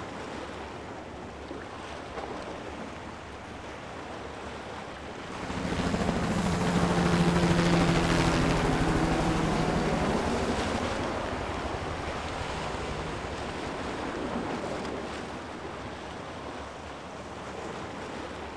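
Sea waves washing, with some wind on the microphone. About five seconds in, a steady hum swells, peaks a couple of seconds later and fades away over the next several seconds.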